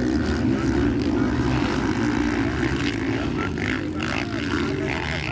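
Several motocross dirt bike engines running together on the track, a steady drone whose pitch wavers up and down as the riders work the throttles.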